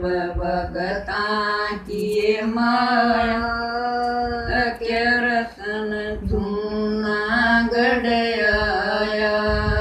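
Women singing a Haryanvi folk bhajan to Krishna, a slow chant-like melody with long held notes that glide between pitches.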